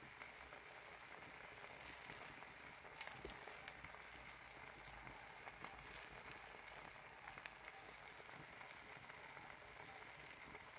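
Faint sizzling with scattered small pops and crackles from beef pieces cooking in their own juice in a stone molcajete over a wood fire.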